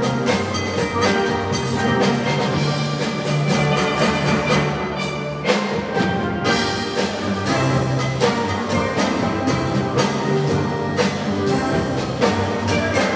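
A steel band playing: many steelpans struck in quick notes over held low notes.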